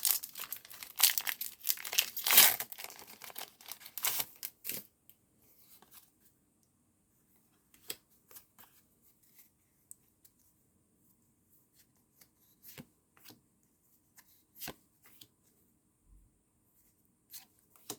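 Foil wrapper of a Pokémon trading-card booster pack being torn open: crinkly tearing for the first five seconds or so, then scattered faint clicks and taps as the cards are handled.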